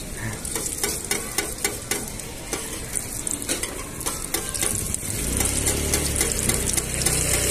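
Egg martabak wrapped in spring-roll skin frying on an oiled flat steel griddle, sizzling, with metal spatulas scraping and clicking against the griddle as it is pressed and turned. About five seconds in, a low steady hum starts underneath.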